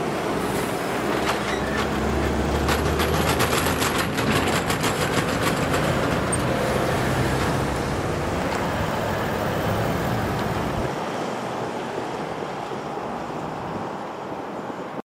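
Road traffic passing over the level crossing: a truck's diesel engine and tyres going by close, with a run of rapid clicks in the first few seconds and a deep rumble that fades after about ten seconds. The sound cuts off suddenly near the end.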